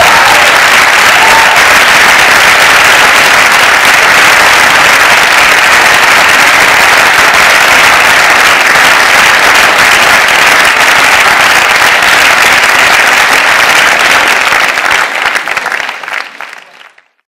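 Audience applauding steadily in a large hall, fading out over the last couple of seconds.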